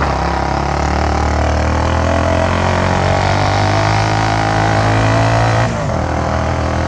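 Bajaj Avenger motorcycle's single-cylinder engine running under way, its pitch creeping up, then dropping suddenly about a second before the end.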